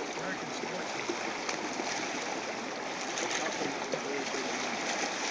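Steady hiss of background noise, with faint indistinct voices beneath it.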